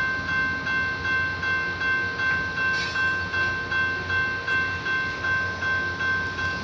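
Railroad grade-crossing bell ringing steadily, about three strokes a second, each stroke fading before the next. A brief hiss cuts in about three seconds in.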